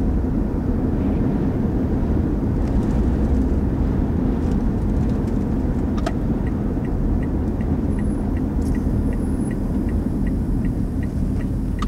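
Steady low rumble inside a car's cabin. About halfway through, a faint indicator relay starts ticking evenly, about three ticks a second.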